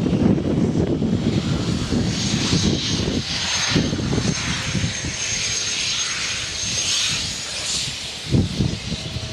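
Diesel engine of a 2008 John Deere backhoe running steadily, with a thin high whine from about two seconds in until near the end.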